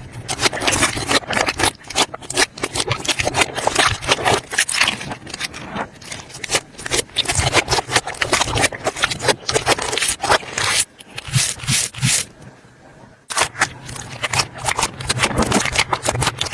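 Slime being squished and worked, a dense irregular run of sticky clicks and crackling pops, with a brief lull about twelve seconds in.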